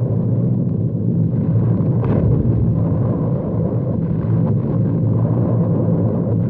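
Steady low drone of aircraft engines over the rumble of bombs exploding, with a brief crackle about two seconds in.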